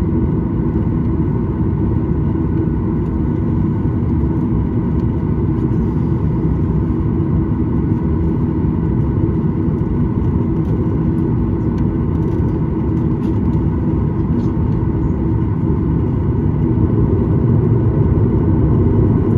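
Cabin noise of a Boeing 737-900 taxiing, heard inside the cabin: its CFM56-7B turbofans at taxi power give a steady rumble with a faint hum of steady tones. It grows slightly louder near the end.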